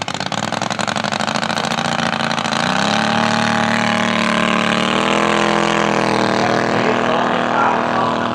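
Gasoline engine of a large-scale radio-controlled P-47 Thunderbolt model running at low revs, then opened up about three seconds in to full power for the takeoff roll. It holds a steady high pitch as the plane lifts off.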